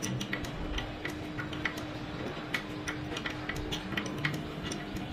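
Sharp metallic clicks at an uneven pace, a few a second, from a spanner being worked on a fuel pipe's union nut on an engine's fuel pump. A steady low hum runs underneath.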